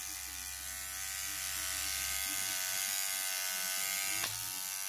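Electric toothbrush running with a steady buzz, with one short tick about four seconds in.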